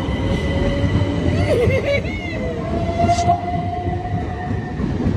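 Southern Class 377 Electrostar electric multiple unit pulling out of the platform close by, its wheels rumbling on the rails while a motor whine rises slowly in pitch as it gathers speed.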